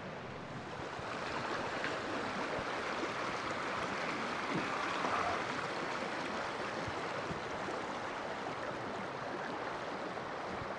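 Steady rushing of flowing water, like a stream, swelling slightly midway.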